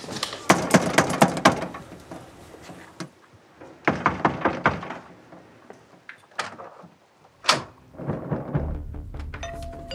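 A quick run of clattering clicks, then scattered thunks and a couple of single sharp knocks; low music comes in near the end.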